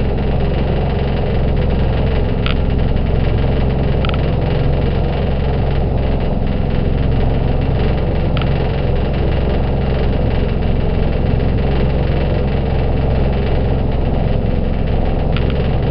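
Motorboat engine running steadily, heard from on board. A few faint, brief high-pitched sounds come and go over the hum.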